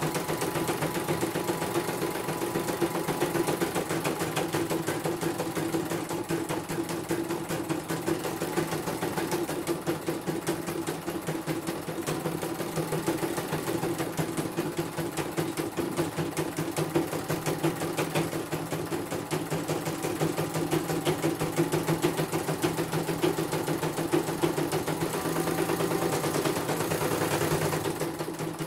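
CNY portable computerized embroidery machine stitching a design: a fast, even needle clatter over a steady motor hum, with the hoop carriage stepping as it sews.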